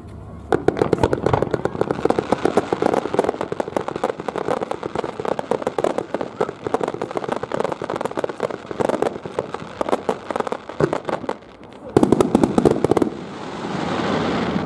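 Fireworks fired in rapid succession: dense, fast crackling and popping of many small bursts that starts about half a second in and runs for over ten seconds. A brief lull follows, then a final loud cluster of bangs about twelve seconds in and an even rushing noise near the end.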